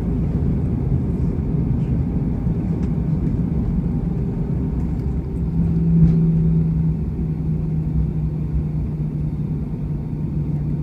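Steady low rumble inside the cabin of an Airbus A319 rolling slowly on the ground after landing, engines at idle with a low hum. The hum swells briefly about six seconds in.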